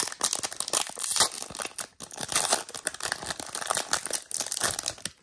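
Foil trading-card pack being torn open and crinkled by hand: a dense, crackly rustle with a brief pause about two seconds in.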